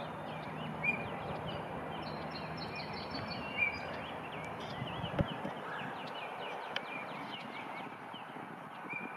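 Several small birds chirping and calling over a steady outdoor background noise. There is a brief low thump about five seconds in.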